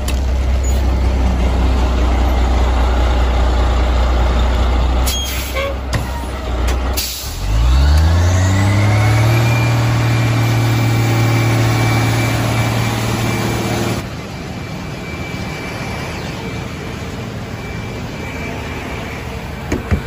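Fire engine's diesel running at a low steady speed, then after a few sharp clicks revving up over about two seconds to a high steady speed with a rising whine, as it drives the pump feeding the spray stream. Partway through this gives way abruptly to a quieter, steady rushing noise.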